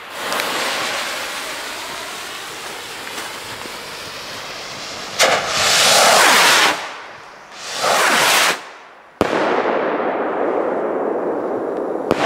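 Two Funke Goldfunken skyrockets fired one after the other: a hiss as the fuses burn, then each rocket lifting off with a loud whoosh, the second starting about a second after the first ends. A little after that comes one sharp bang of a burst overhead, trailing off slowly.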